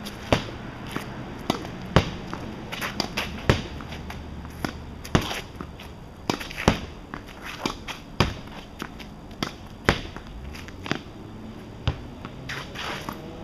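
Tennis ball hit repeatedly with a racket against a wooden barn wall: a run of sharp, irregular knocks as the ball meets the strings, the wall and the pavement, about one to two a second.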